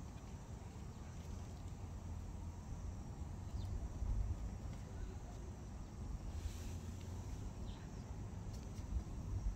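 Outdoor background: a steady low rumble, with a few faint, short high chirps now and then and a couple of soft low bumps.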